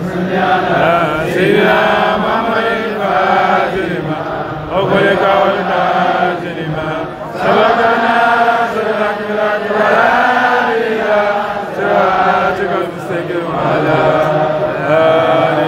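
Islamic devotional chanting by voices in flowing, repeated phrases of a second or two, with short breaks between them.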